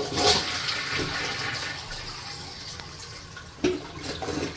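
Toilet flushing: water rushes through the bowl and drains in a complete flush, loudest at the start and fading. A short knock comes about three and a half seconds in.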